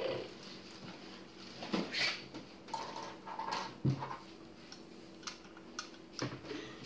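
Plastic Lego Technic parts clicking and knocking on a wooden table as the model is handled, a few scattered taps a second or so apart.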